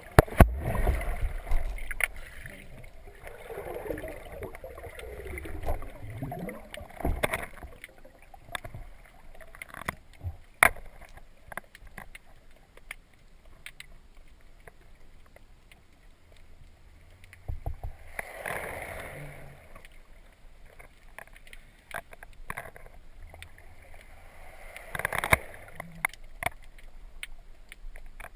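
Underwater sea noise: swirling, gurgling water with many scattered sharp clicks and ticks, and two louder rushing surges of water in the second half.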